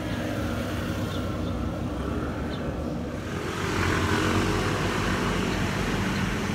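Street traffic: a motor vehicle's engine running close by, a steady low rumble that grows louder about three seconds in.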